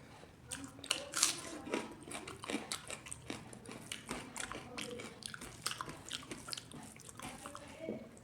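A person chewing and biting food close to the microphone, with many irregular wet mouth clicks and smacks.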